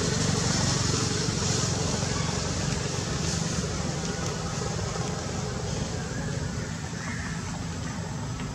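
Steady outdoor background noise: a low rumble with a hiss over it, without a break or a distinct event.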